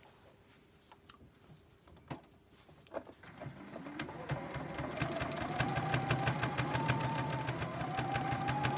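Sewing machine starting up about three seconds in after a few faint clicks, its motor whine rising to speed, then stitching steadily with a rapid needle clatter. The pitch eases and picks up again as the speed varies, stitching through tulle netting.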